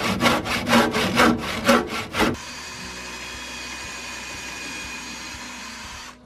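Hand saw cutting a wooden beam in quick back-and-forth strokes, about four a second, for a little over two seconds. Then a cordless drill runs steadily, driving a screw into wooden planks.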